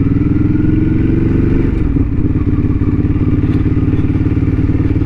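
Ducati Hyperstrada's L-twin engine running at a steady cruise, heard from on board the bike; its pitch creeps up slightly, dips briefly about two seconds in, then holds steady.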